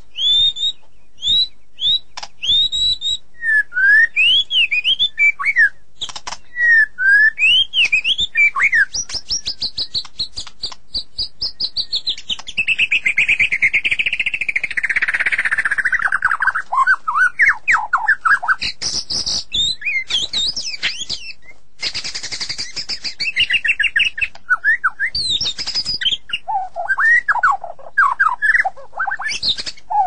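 White-rumped shama (murai batu) singing loudly and continuously. Its varied whistled phrases rise and fall, beginning with a run of repeated short whistles. Around the middle comes a long rapid trill that slides down in pitch, and dry clicking notes are mixed in throughout.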